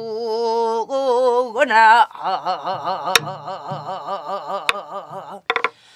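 A woman singing yukjabaegi, the Namdo folk song, in long held notes with a wide, wavering vibrato. She accompanies herself on a buk barrel drum, which gives two sharp stick strokes about a second and a half apart past the middle.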